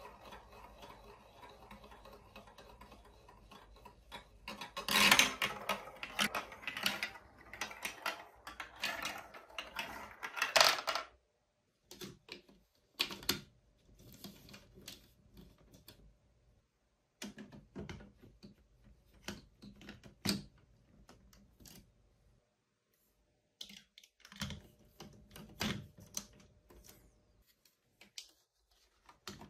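A marble rolling and rattling through a plastic block marble run's tracks and spiral bowls, with loud clacks about five and ten seconds in, stopping at about eleven seconds. Then scattered clicks and knocks of plastic building blocks and track pieces being snapped together by hand.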